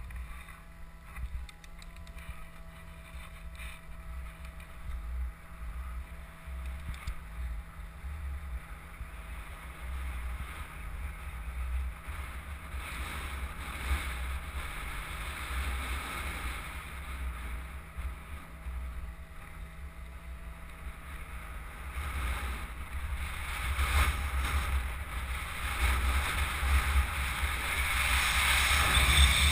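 Wind buffeting a helmet-mounted camera's microphone, with tyre and road noise from a gravity vehicle rolling down asphalt. It grows steadily louder as the run picks up speed, loudest near the end.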